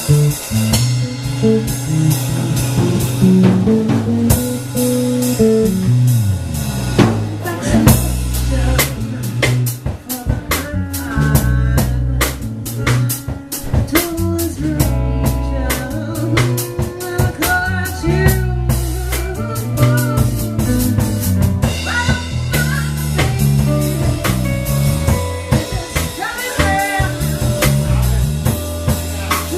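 Blues band playing live without vocals: drum kit with rimshots and snare over a moving bass line, with a wavering melodic lead above.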